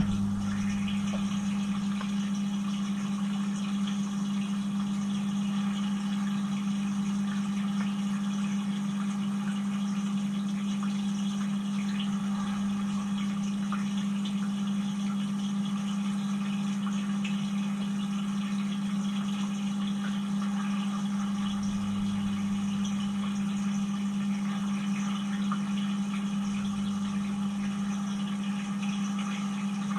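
Cylinda dishwasher's circulation pump running during the rinse cycle, heard from inside the tub: a steady motor hum under an even hiss of spraying water. It comes on abruptly right at the start.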